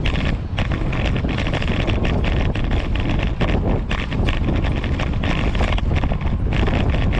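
Wind buffeting the microphone of a GoPro on a moving fixed-gear bicycle, with a rapid, uneven rattle from the bike rolling over the paving.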